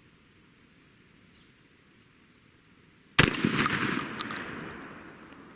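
A single shotgun shot from a Stoeger shotgun firing a trap load, about three seconds in, followed by a fading echo lasting about two seconds.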